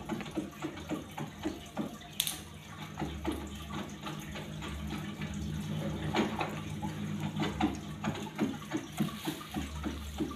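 Water running and trickling steadily, with many irregular small drips and splashes over a low hum.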